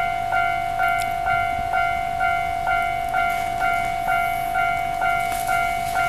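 Japanese railway level-crossing warning bell ringing steadily, about two strokes a second, each stroke a bright ringing tone that carries on into the next. It is the crossing signalling an approaching train while its barriers come down.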